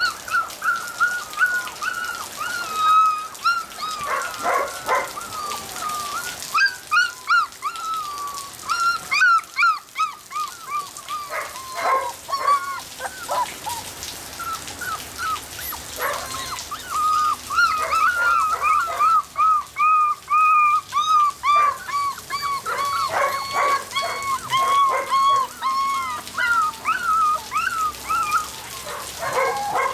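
Border Collie puppies whining and whimpering in an almost unbroken string of short, high-pitched calls, with several quick clusters of short sharp sounds among them.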